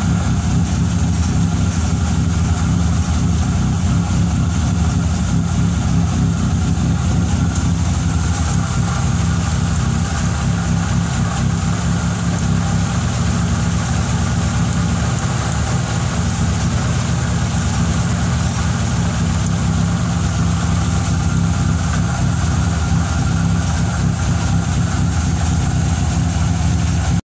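Fiat Tempra 2.0 16V four-cylinder engine running steadily with a loud abnormal mechanical noise. The owner cannot place it and wonders whether it is a bearing shell, a piston, or simply a worn bearing on some accessory.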